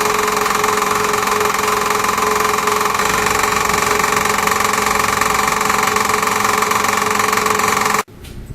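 Homemade lathe's motor running steadily with a constant hum and whine. It cuts off abruptly near the end.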